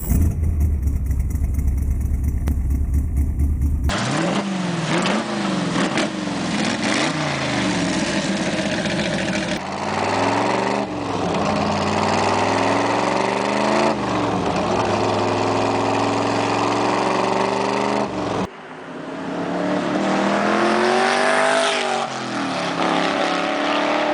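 Shelby Cobra 427's 7-litre V8 engine: a low, steady rumble, then from about four seconds in, loud revving and acceleration with the pitch repeatedly climbing and dropping. After a break near the end there is one more rising pull.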